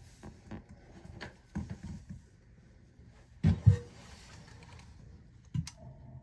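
Handling noise as a nut is started by hand on a toilet tank bolt with a small plastic tool: scattered light clicks and knocks, with two sharper knocks about three and a half seconds in and another near the end.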